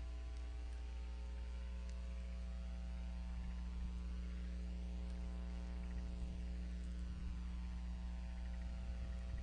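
Steady electrical mains hum with a faint hiss, with a few faint ticks in the first two seconds.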